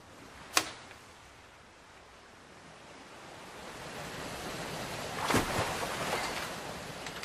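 A sharp click about half a second in, then a rushing noise like surf or wind that swells from about three seconds and is loudest from about five seconds on.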